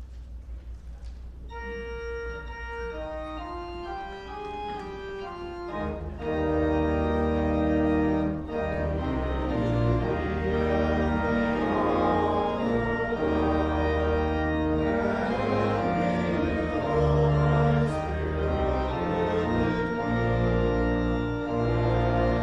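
Church organ playing. A low held bass note sounds first, higher melody lines enter about a second and a half in, and from about six seconds in the organ plays fuller and louder with deep bass notes under slow-moving chords.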